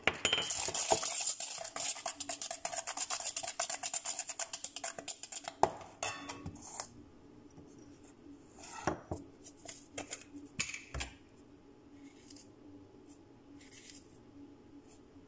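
Wire whisk beating an egg mixture in a metal mixing bowl: a fast, rhythmic metallic clatter for about the first six seconds. After that come only a few scattered clinks and knocks against the bowl.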